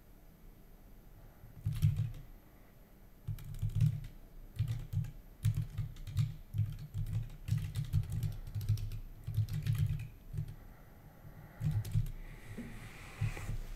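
Typing on a computer keyboard: short runs of keystrokes with pauses between, each key landing with a click and a dull low thud, as code is typed and then deleted.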